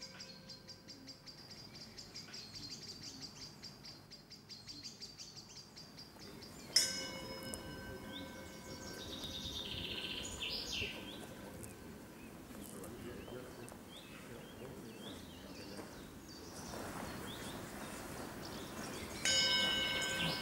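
Birds chirping, with a meditation bell struck twice, about a third of the way in and again near the end, each strike ringing on with several steady tones.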